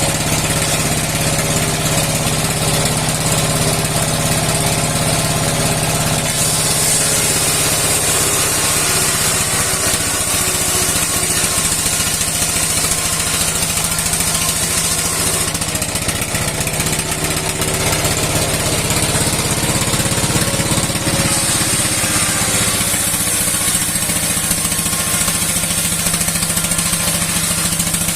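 A 60-year-old engine running steadily under load, driving a steel saw blade through wood. Over the engine's even running there is a high hiss that strengthens about six seconds in, eases in the middle and comes back later.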